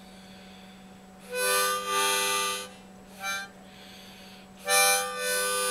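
Swan harmonica played by a beginner: a few chords blown and drawn in three bursts, a long one, a short one and another long one near the end.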